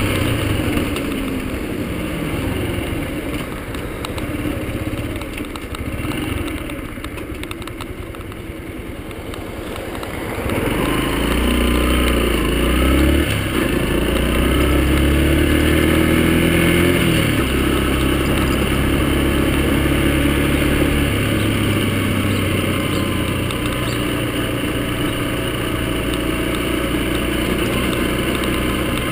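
Yamaha XTZ 125 motorcycle's single-cylinder four-stroke engine while riding. It runs quieter and falls in pitch, slowing, for about the first ten seconds, then pulls away louder and rises through several pitch steps as it shifts up, settling into a steady cruise.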